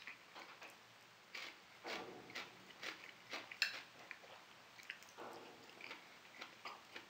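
Quiet eating sounds: faint chewing and light, scattered clicks of a knife and fork against a plate.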